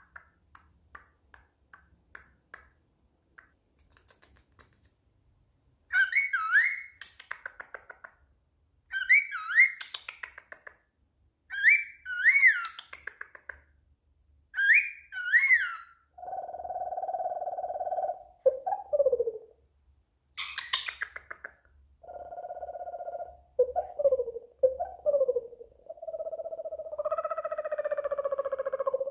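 Male cockatiel whistling its song: four short, swooping phrases repeated a few seconds apart, then a sharp high chirp. Lower, steadier held notes with small slides fill the second half.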